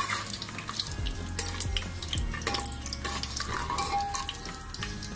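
Whole spices (bay leaves, cinnamon, cardamom, dried red chillies and peppercorns) sizzling in hot oil and ghee in a pan, with many short crackles, while being stirred.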